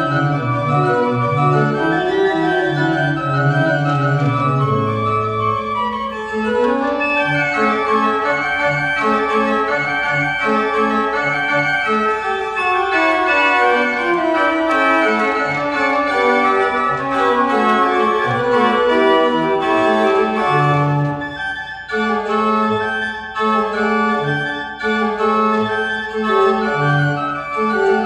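19th-century pipe organ playing a polyphonic piece, several voices moving at once over a sustained bass line. After about twenty seconds the chords break off briefly a few times before the playing carries on.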